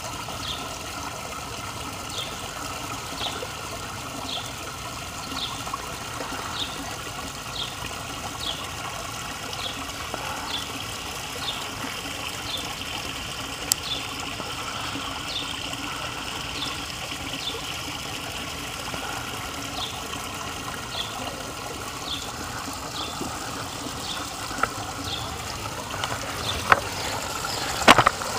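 Small garden-pond waterfall trickling and splashing steadily over rocks, with a short high chirp repeating about once a second. A few sharp clicks near the end.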